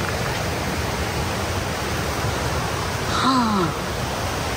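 Waterfall rushing steadily, with a brief voice about three seconds in.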